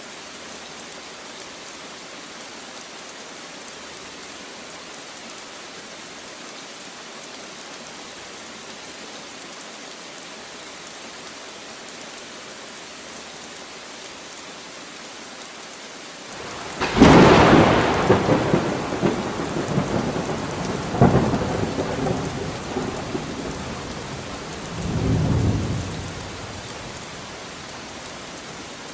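Steady rain falling. About two-thirds of the way in, a loud thunderclap cracks and rolls into rumbling, with a second sharper crack a few seconds later and a last low rumble before it fades back to the rain.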